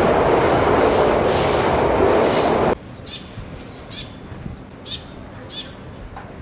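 Tokyu Toyoko Line train running through the station, a loud steady rumble with a high wheel squeal, cut off suddenly a little under three seconds in. After that there is quieter street background with short high chirps about once a second.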